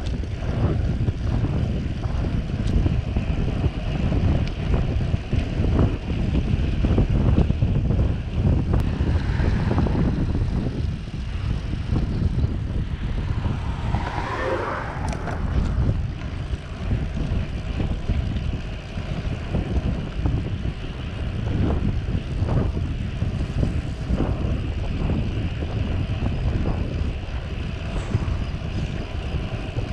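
Wind rumbling over the microphone of a camera on a moving bicycle, a steady low roar. About halfway through, a car passes.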